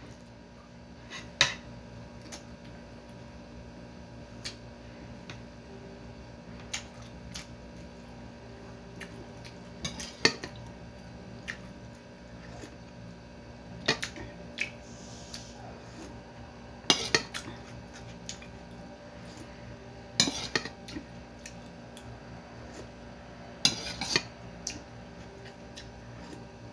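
Metal spoon clinking and scraping against a ceramic plate of rice, in short sharp clusters every few seconds, over a faint steady hum.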